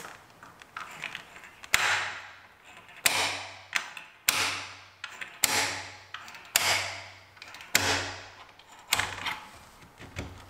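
A spring-loaded hinge pin remover fired again and again under a door hinge: about eight sharp metallic snaps, roughly one a second, each ringing briefly. Its built-in spring hammer taps the hinge pin up and out of the hinge knuckles.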